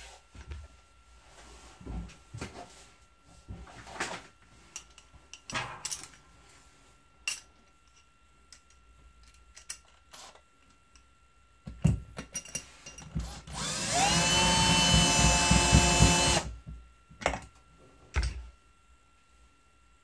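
Cordless drill-driver driving a screw through a metal roller-blind bracket into the wall. Scattered handling knocks and clicks come first. About two-thirds of the way in, the motor runs for about three seconds with a whine that rises in pitch as it spins up, then it stops and a couple of knocks follow.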